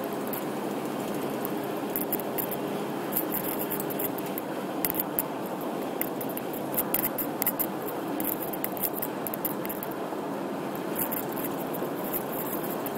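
Steady road and engine noise heard inside a moving car's cabin, with short clusters of sharp crackling clicks every second or two.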